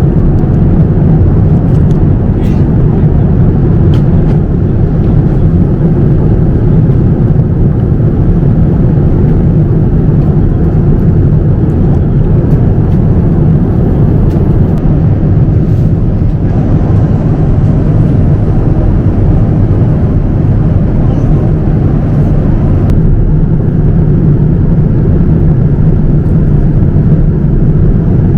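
Steady low cabin noise of a Boeing 787-9 airliner in flight: engine and airflow noise heard from inside the cabin.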